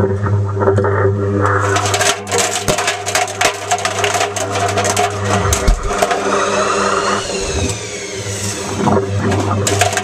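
Plastic caps tumbling and clattering irregularly against the perforated stainless-steel drum of a Zanussi ZWF1421W washing machine as the drum turns, over a steady motor hum, heard from inside the drum. A whine rises and falls about seven seconds in.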